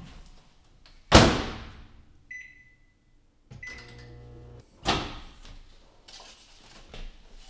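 Over-the-range microwave oven in use: the door shuts with a bang about a second in, then comes a long electronic beep. The oven runs with a low hum for about a second before the door is popped open with another bang.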